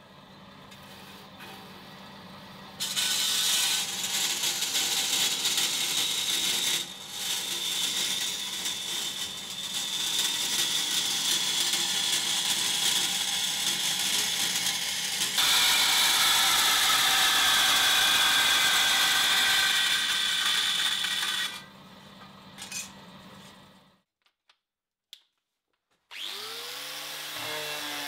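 Electric power tool working metal. The motor hums, then a loud, steady grinding or cutting sound with a high whine runs from about three seconds in until about twenty-one seconds, and the motor then runs down. Music comes in near the end.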